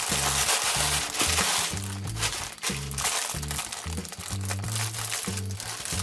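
Thin plastic packaging crinkling and rustling: a plastic mailer bag and the clear plastic film around a handbag being handled and pulled apart. Background music with a stepped, steady bass line runs underneath.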